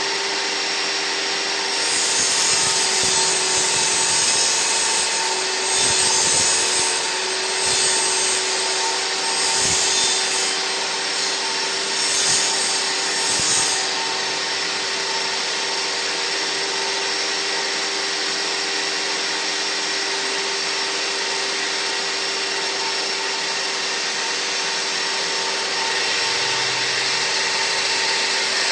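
Table saw motor running at a steady hum while its blade cuts through a board, the cutting noise surging several times from about two seconds in to about fourteen seconds in; after that the blade runs free at a steady pitch.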